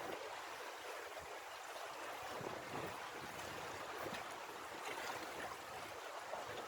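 Seawater washing and splashing against shore rocks, a steady rushing wash.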